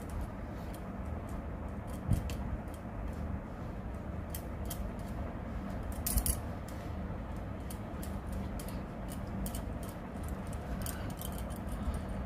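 Scattered small clicks and light taps from makeup products and tools being handled, the sharpest about two and six seconds in, over a steady low hum.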